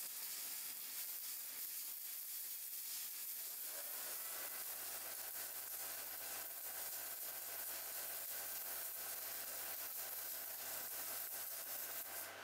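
Faint, steady hiss of a welding arc burning at about 160 amps. A low hum joins it about four seconds in.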